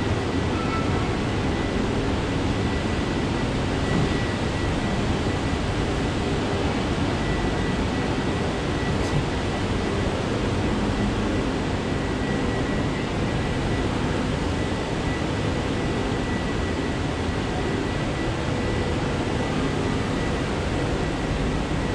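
Steady rumble and hiss of an underground metro station's background noise, with a faint steady high-pitched tone over it.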